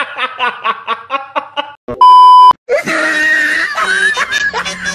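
A loud half-second censor bleep, a pure steady beep that cuts in and out sharply about two seconds in, between stretches of a voice; music comes in under the voice in the second half.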